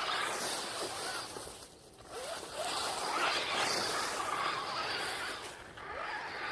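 Electric RC rock racer driving over rough ground: the motor's whine rises and falls in short bursts as the throttle is worked, over a scrabbling noise of the tyres, with a short lull about two seconds in.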